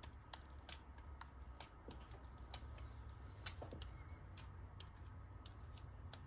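Faint, irregular light ticks and taps as fingers dab a dust-removal sticker on an iPhone 13 Pro's glass screen, lifting dust before a screen protector goes on, over a low steady room hum.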